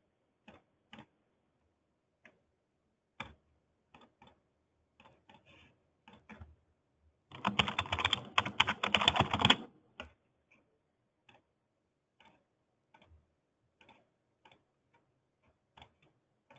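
Typing on a computer keyboard: scattered single keystrokes, with a quick run of typing lasting about two seconds around the middle.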